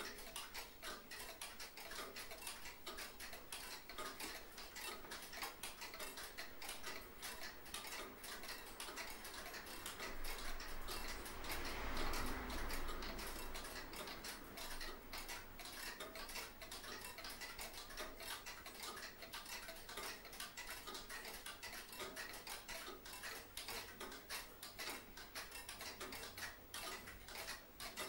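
Black plastic rubbish bag crackling as it is handled, a dense irregular patter of small clicks that swells briefly about halfway through.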